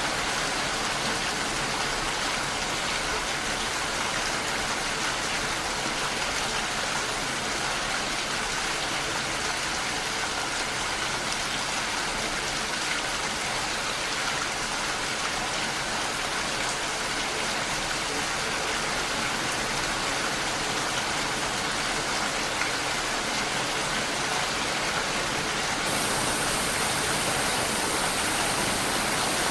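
Steady heavy rain, an even hiss without distinct drops. Near the end the highest part of the hiss gets brighter.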